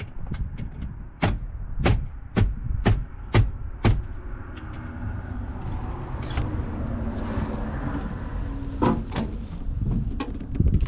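Six sharp knocks about half a second apart, then a steady mechanical noise with a low hum for several seconds, and a few more knocks near the end.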